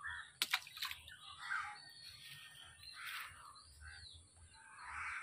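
Faint bird calls in the surrounding trees, spaced out every second or so, with two sharp clicks about half a second in.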